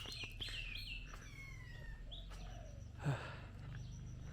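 Bird chirping outdoors: a quick run of five repeated falling chirps, then a longer falling whistle and one more chirp. A short thump about three seconds in.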